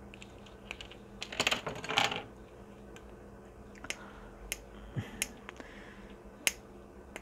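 Small nippers clicking and snipping against the plastic of a freshly injection-moulded earphone plug, trimming off the excess moulding. A dense crackling cluster of clicks about a second and a half in, then single sharp clicks at intervals.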